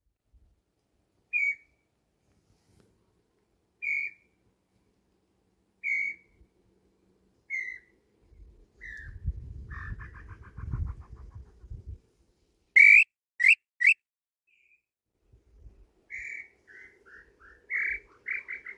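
Tinamou song in pure whistled notes: single notes about two seconds apart, each a little lower, then quickening into a falling run, as in a lambu (tinamou) call, here blown on a wooden call and answered by a female. Three loud notes in quick succession come a little past the middle, and near the end another series falls in pitch and speeds up. A low rustling rumble runs through the middle.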